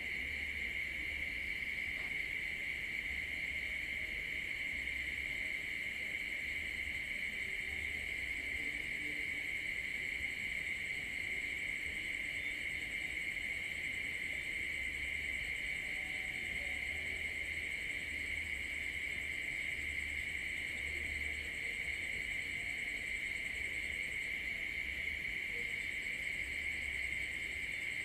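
Night insects chirring in a steady, high-pitched chorus that never breaks.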